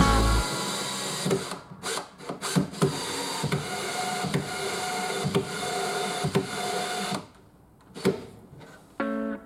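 Cordless drill running against a plywood panel: a few short bursts, then a steady whine for several seconds that stops about seven seconds in.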